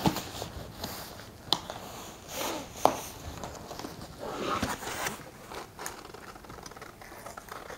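Cardboard mailing box being handled and folded shut on a table: irregular scraping and rustling of cardboard, with a few sharp knocks.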